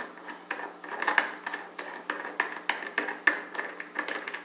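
Steel washers and nuts clicking and clinking as they are handled and fitted onto a beam trolley's center link, a run of light, irregular clicks.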